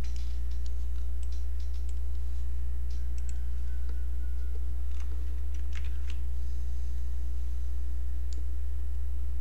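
Scattered clicks of a computer mouse and keys, a few at a time, over a steady low hum that is the loudest sound throughout.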